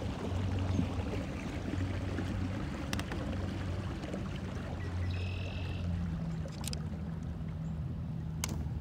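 Small motorboat's outboard motor running steadily under way, a low even hum, with water noise along the hull.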